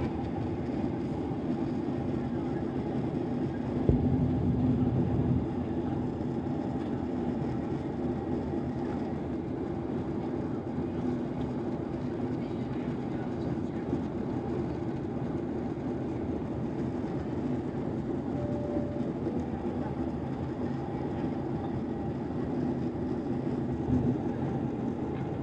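Steady drone of a Boeing 737's engines and rushing air, heard inside the passenger cabin in the climb after take-off. There is a brief knock about four seconds in.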